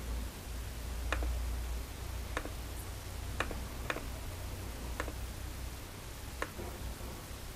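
Six sharp, unevenly spaced computer mouse clicks over a steady low hum and hiss.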